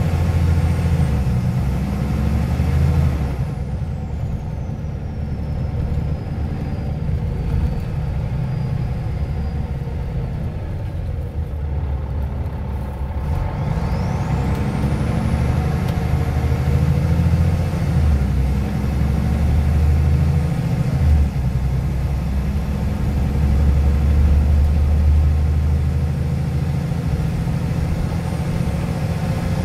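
Scania OmniLink I CL94UA city bus heard from inside the passenger cabin, its engine and drivetrain humming steadily. A thin whine falls as the bus eases off about three seconds in. About halfway through the whine rises again and the engine gets louder as the bus pulls away and picks up speed.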